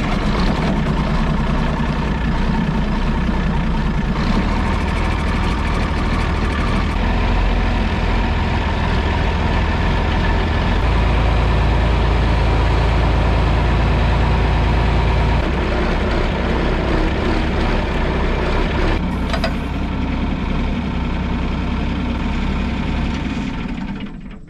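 Farm tractor engine running just after being started, a steady loud rumble. The low rumble grows heavier for a few seconds about halfway through, and the sound dies away near the end.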